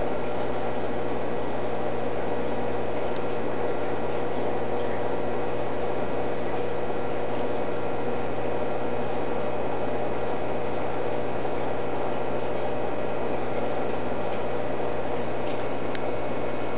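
Steady low hum and even hiss of a nano reef aquarium's equipment running, with a few faint ticks scattered through it.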